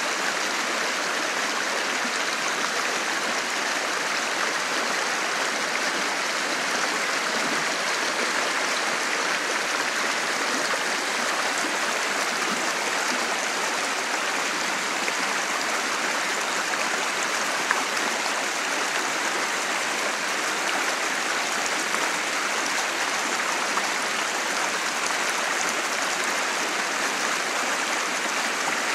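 Fast, shallow creek rushing over a rocky riffle: a steady, even rush of water.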